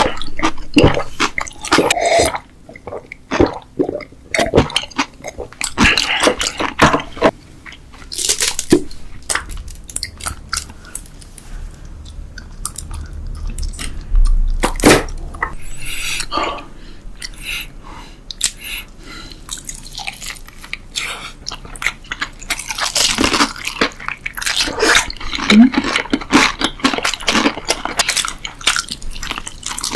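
A person eating close to the microphone: chewing and crunching food, with many quick irregular crunches and mouth clicks.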